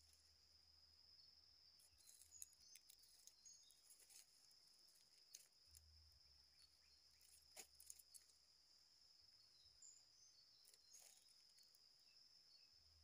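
Faint insect chirring, one steady high-pitched tone, with a few faint clicks scattered through it.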